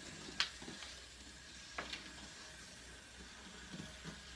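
Dominoes being set down on a toy train track: a few light, sharp clicks, one clear one about half a second in and fainter ones later, over a steady faint hiss.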